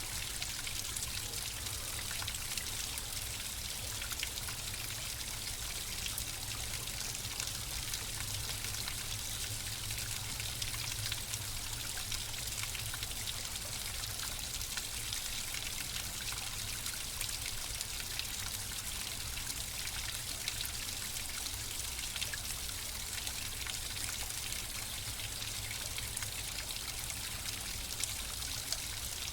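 Flowing water running steadily, a stream-like trickle with fine splashing, unchanging throughout.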